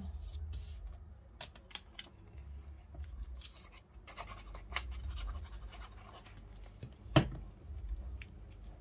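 Paper and card being handled and glued on a craft mat: light rustles, scrapes and small ticks, with one sharp knock about seven seconds in.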